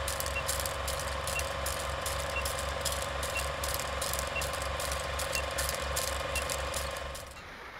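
Chang Jiang 750 flat-twin motorcycle engine running at a steady idle, with a mechanical clatter of clicks and a faint short high pip about once a second. The sound drops away about seven seconds in, as if the engine is switched off.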